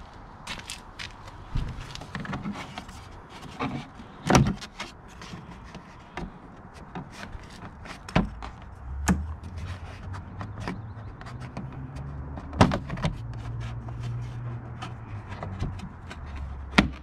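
Hard plastic clicking and knocking as a motorcycle side panel is pulled and its clips pop free, a string of short clicks with several louder knocks, over a low steady rumble.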